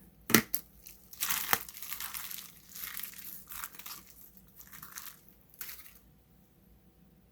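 Packaging crinkling and rustling in irregular bursts as it is handled and opened, with a couple of sharp clicks early on; it stops about six seconds in.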